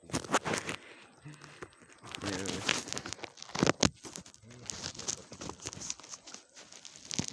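Irregular rustling and crinkling handling noise in short bursts, with faint voices in the background.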